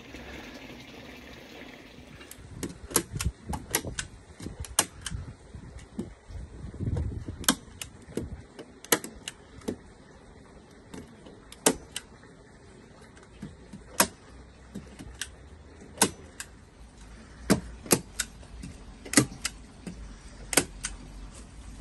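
Hand staple gun fired again and again, driving staples through pond underlay into the timber sleeper edges: sharp single clacks, irregularly spaced, sometimes two or three in quick succession, sometimes a few seconds apart.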